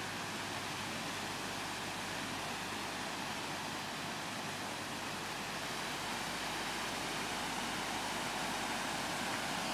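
Small waterfall cascading over mossy rocks: a steady rush of falling water, growing slightly louder toward the end.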